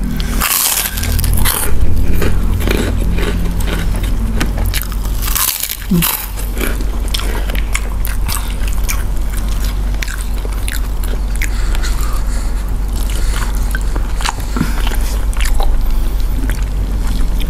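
Close-miked mukbang eating: a crisp fried cracker bitten with sharp crunches, then steady chewing and mouth sounds, with loud bursts of crunching in the first couple of seconds and again about five seconds in.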